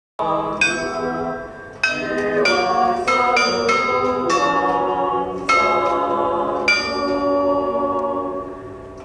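Set of bronze bells on a steel bell-tower sculpture ringing a melody, struck note after note at an uneven tune-like pace, each note ringing on under the next. The sound starts a moment in, after a short silence.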